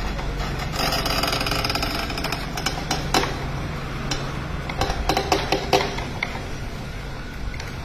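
Rotary stone oil press (ghani) with its pestle turning through crushed oilseed paste in a stone mortar: a steady low hum, with grinding and crackling and a few sharp clicks about three seconds in and again around five seconds.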